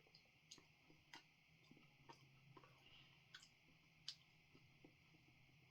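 Near silence with faint, irregular clicks: a mouth chewing crunchy chilli oil, its crispy garlic and shallot bits crackling now and then.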